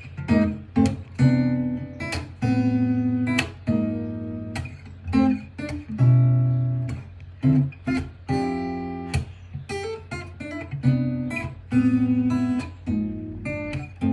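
Acoustic guitar strummed slowly, one chord after another, each chord ringing out and fading before the next.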